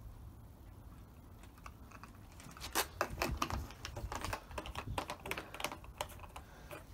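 Quick, irregular sharp clicks and plastic rattles from a plastic fuel jug being handled and its cap worked, starting about three seconds in.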